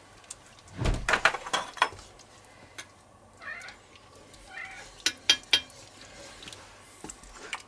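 Spoons stirring and scraping a thick, creamy stew in a cast-iron Dutch oven, with sharp clinks of spoon on pot, a cluster about a second in and another around five seconds in.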